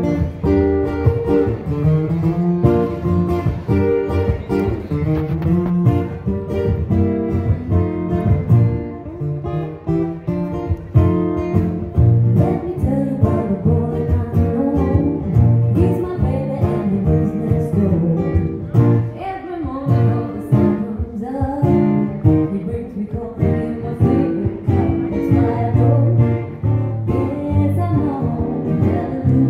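Live acoustic music: two acoustic guitars strummed and picked, with a sung vocal line over them.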